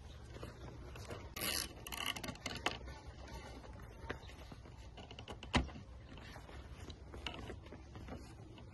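Plastic zip tie being threaded and pulled tight, its ratchet clicking in short quick runs. There is one sharp knock about five and a half seconds in.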